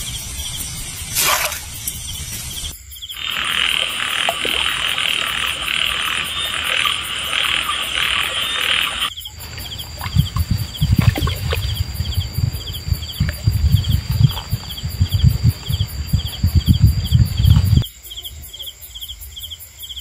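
Frogs calling in a dense pulsing chorus, with insects chirping in a steady rhythm. The clip cuts between scenes: loud low irregular thuds take over in the middle, and crickets chirping alone remain near the end.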